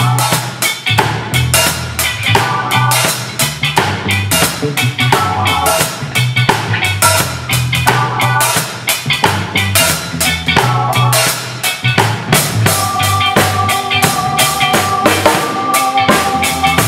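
Acoustic drum kit playing a steady groove along with a recorded backing track that carries a bass line. The snare is played cross-stick as dry rim clicks. Held chords from the backing track come in about three-quarters of the way through.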